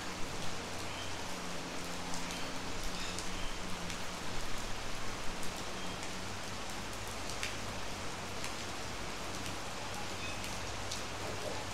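Steady rain falling on a veranda and the vegetation around it, with occasional sharper drip ticks and a low steady hum underneath.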